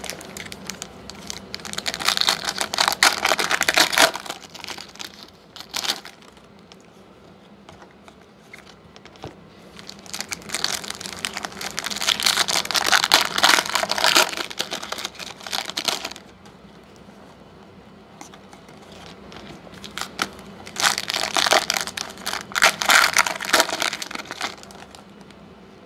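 Foil trading-card pack wrappers being torn open and crinkled by hand, in three bouts of crackling with short quieter pauses between.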